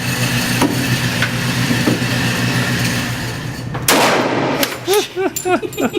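A single gunshot about four seconds in, a sharp crack with a brief ring-off, over a steady low hum.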